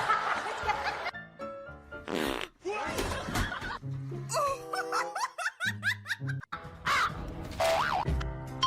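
Background music under short, abruptly cut bursts of laughter and other vocal sounds.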